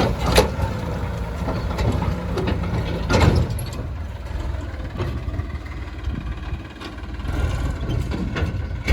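Heavy diesel engine running steadily, with a couple of sharp knocks just after the start and a louder knock about three seconds in.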